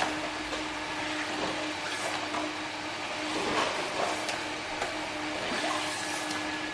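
GN-F02 two-flap hot melt box sealing machine running: a steady motor hum and whir, with several short light knocks as small cardboard boxes are pushed through and their flaps folded.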